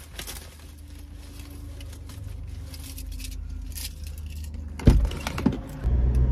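Car cabin with a low steady engine hum and keys jangling, then a sharp thump and a few clicks about five seconds in as the car door is opened to get out, followed by a low rumble.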